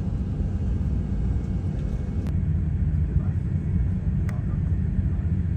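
Steady low rumble inside the cabin of an Airbus A330-200 taxiing after landing, with a couple of faint clicks.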